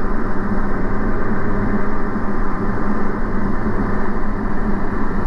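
Diamond DA40 light aircraft's engine and propeller droning steadily in flight, heard from inside the cabin, with a constant low hum and no change in power.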